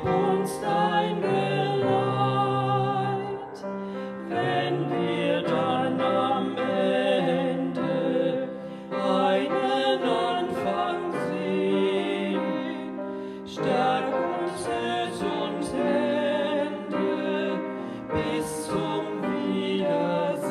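A man and a woman singing a song to upright piano accompaniment, the voices held long with a wavering pitch.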